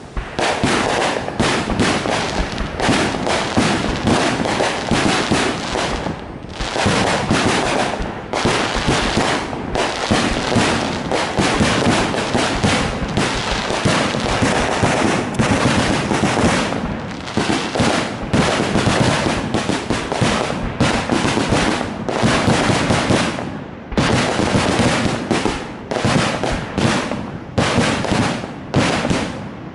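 Aerial firework shells bursting in a dense barrage, one bang after another with hardly a gap, easing off briefly a few times before picking up again.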